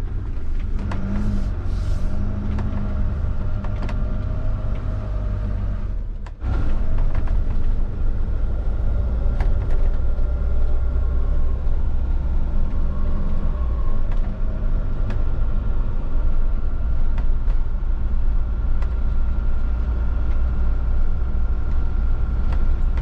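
Steady road and engine rumble of a Fiat Ducato-based motorhome driving along, with a faint steady whine and occasional light rattles. There is a brief break about six seconds in.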